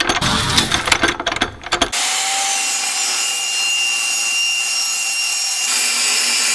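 Irregular mechanical clicking and clattering. About two seconds in it changes abruptly to a steady saw cutting through steel tubing, a hissing rasp with a faint high whistle.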